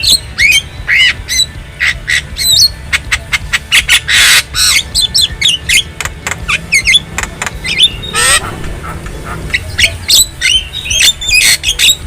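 Javan myna (jalak kebo) calling in a rapid mix of sharp clicks, harsh squawks and whistled notes that glide up and down, with longer rasping calls about four and eight seconds in.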